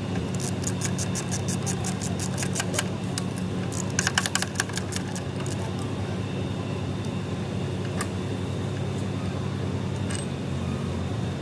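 Steady low machine hum, with a run of quick clicks over the first few seconds and a louder metallic clatter about four seconds in.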